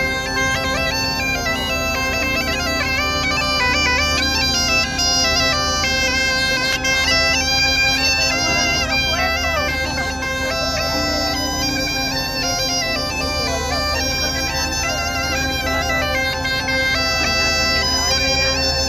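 Galician bagpipe (gaita gallega) playing a lively melody over its steady, unbroken drone.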